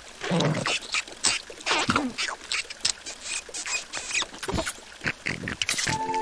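Animated cartoon larvae making a rapid string of short wordless vocal noises and mouth sounds. A held music chord comes in near the end.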